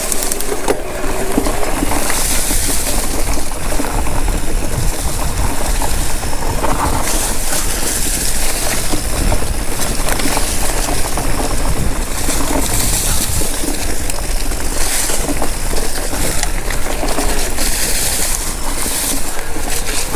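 Wind rushing over the microphone and knobby tyres rolling over a dirt and rock trail on a fast mountain-bike descent, swelling and easing with speed, with scattered knocks from the bike over bumps.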